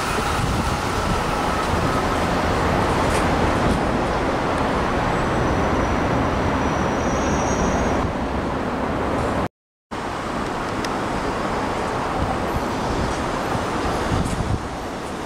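Electric express trains approaching and running along the line: a steady, even rumble and rush of noise, with the sound breaking off for a moment about nine and a half seconds in.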